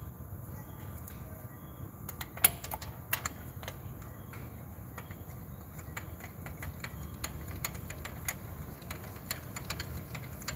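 Irregular light metallic clicks and taps of a spark plug socket and extension being handled as a new spark plug is fitted, with one sharper click about two and a half seconds in.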